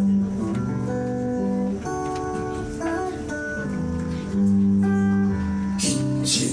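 Live acoustic band music: two acoustic guitars strumming chords, with long held melody notes changing about once a second over them.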